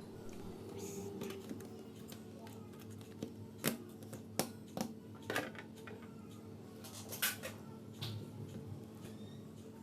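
Plastic retaining clips of a laptop's bottom case snapping loose as the case is slowly pried open with a plastic tool: irregular sharp clicks and light scrapes, a few louder snaps among them.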